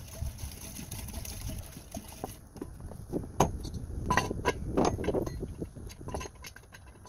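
Water pouring from a plastic gallon jug into a metal pressure cooker pot for about two seconds, then a run of metal clinks and clanks as the cooker's lid and handle are fitted.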